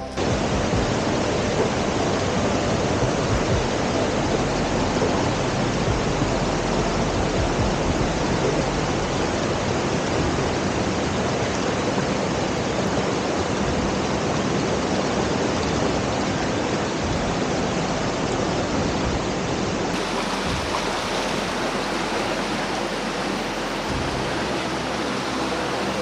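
Shallow rocky stream rushing over boulders and small cascades: a steady, even hiss of water.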